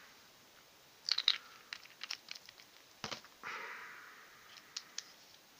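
Small clicks and ticks of a vape mod's metal tank and a plastic e-liquid dropper bottle being handled while the tank is refilled and screwed back on. A cluster of clicks comes about a second in and a sharper one near three seconds, followed by a soft hiss lasting about a second.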